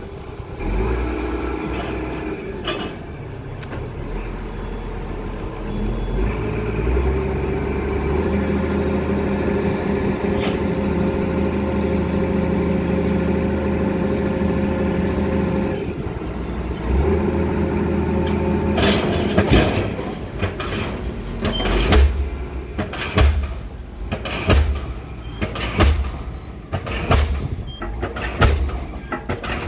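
A pile-driving rig's diesel engine running steadily, revving up about six seconds in. About two-thirds of the way through, a diesel pile hammer starts striking the pile with sharp, regular blows about once a second.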